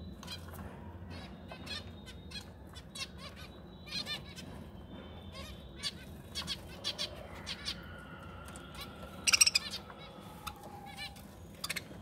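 Budgerigars chirping in short, scattered calls, with a louder flurry of chirps about nine seconds in.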